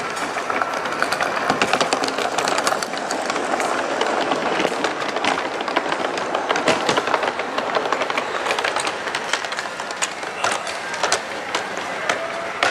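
Large-scale garden model freight train running along the layout, its wheels clicking and clattering over rail joints and switches.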